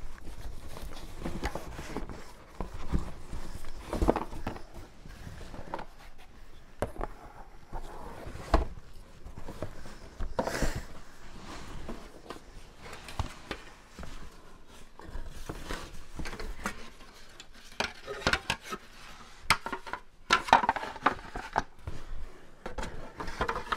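Plastic Hot Wheels track pieces knocking together and a cardboard box rustling as the pieces are packed into it: a run of irregular clicks, knocks and rustles.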